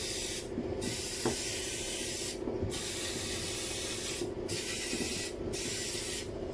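Steady hiss over a low hum. The hiss drops out briefly about five times, and there is a faint knock about a second in.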